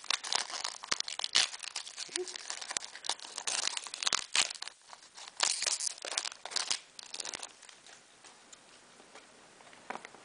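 Foil booster pack wrapper crinkling and tearing as it is handled and opened, busy and crackly for the first seven seconds or so, then dying down to faint handling.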